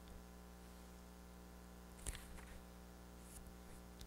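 Near silence: room tone with a faint steady electrical hum, and one brief faint click about two seconds in.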